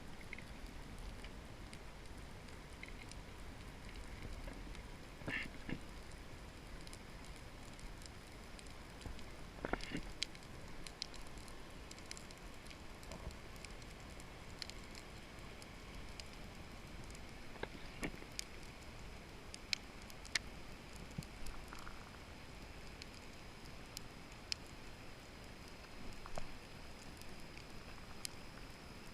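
Underwater ambience: a faint steady hiss and low rumble, with scattered sharp clicks and crackles every second or so.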